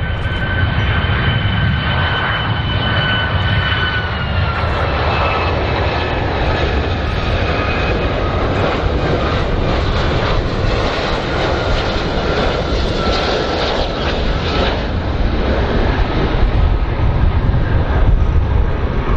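Boeing 757 jet airliner on final approach: a steady, loud jet-engine rumble with a high whine that drops slightly in pitch about four seconds in and fades out near the end.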